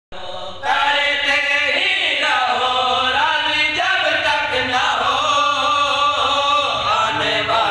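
Men's voices chanting a devotional qaseeda without instruments, in long held melodic phrases, fuller from under a second in.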